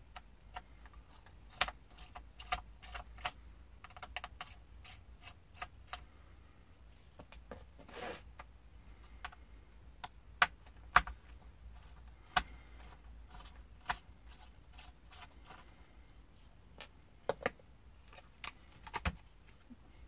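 Irregular small clicks, taps and light clinks of a screwdriver, tiny screws and plastic parts on the underside of a Lenovo G510 laptop being taken apart, with screws coming out and the hard drive being worked loose.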